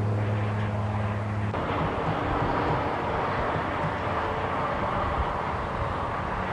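Union Pacific 844, a 4-8-4 steam locomotive, working its train away from a stop with a steady rushing roar of exhaust and steam. A low steady hum stops about a second and a half in, when the roar takes over.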